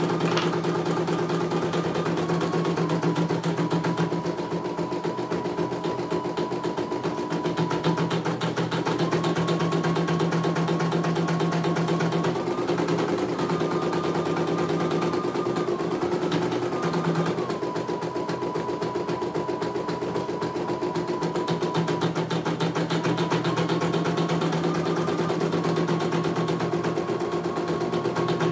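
CNY E900 computerised embroidery machine stitching a design: a fast, even needle rhythm over a motor hum whose pitch steps up and down every few seconds as the hoop moves.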